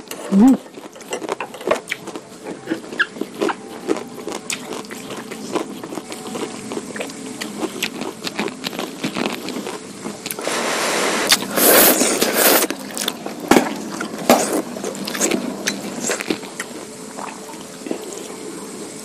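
Close-miked eating sounds of soupy curry noodles: wet chewing and lip smacks in many small clicks, with a longer slurp about eleven seconds in, the loudest part.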